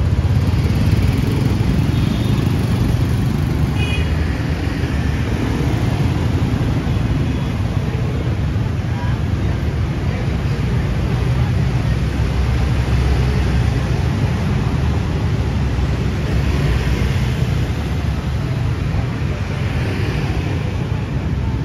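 Steady city street traffic: a continuous wash of motorbike and car engines and tyre noise passing close by.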